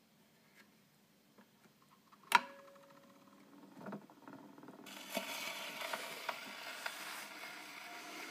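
Wind-up gramophone being started: a sharp metallic click about two seconds in, with a brief ringing, as the turntable is set going. From about five seconds, the needle runs in the lead-in groove of a Columbia 78 rpm shellac record, giving a steady surface hiss and crackle before the music begins.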